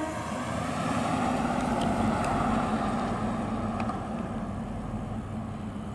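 The 1961 Cadillac Series 62's 390 cubic-inch V8 running as the convertible drives past and pulls away, engine and tyre noise swelling about two seconds in and then slowly fading.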